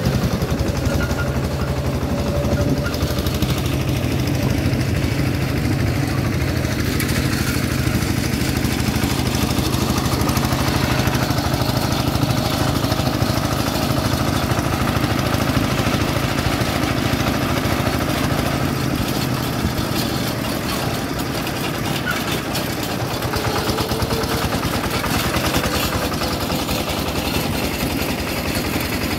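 Single-cylinder diesel engine of a hand tractor running steadily as it pulls a trailer along a dirt road, with a rapid, even chugging. Its low hum eases a little about two-thirds of the way through.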